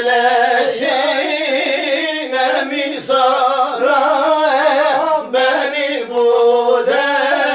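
A man's voice singing a Turkish folk song (türkü) without instruments, in long, wavering, ornamented held notes with short breaks between phrases.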